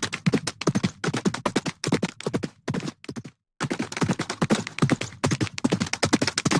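Horse hooves galloping in a fast, continuous run of hoof beats. The beats cut out briefly a little over three seconds in, then carry on.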